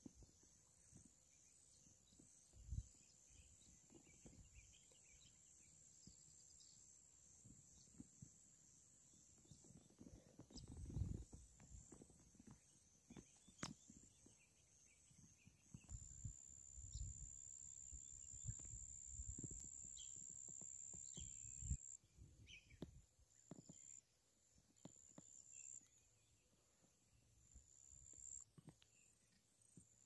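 Faint outdoor dawn ambience: a steady high-pitched drone with scattered faint bird chirps, and low thumps and rumbles now and then. The drone grows stronger for several seconds from about halfway through.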